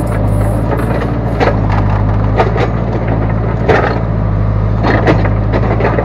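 Backhoe loader's diesel engine running steadily under work, with irregular sharp knocks and cracks from the backhoe arm and bucket working the soil.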